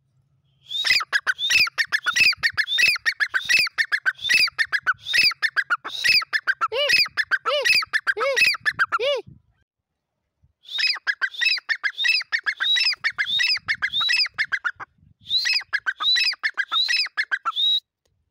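Dakhni teetar (grey francolin) calling: rapid series of loud, shrill repeated notes, about three a second, in three bouts separated by short pauses. Lower notes join in near the end of the first bout.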